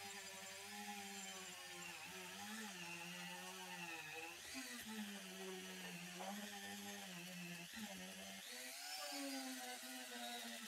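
Rotary tool with a sanding drum whining as it sands rust off a steel hacksaw frame. Its pitch wavers up and down throughout.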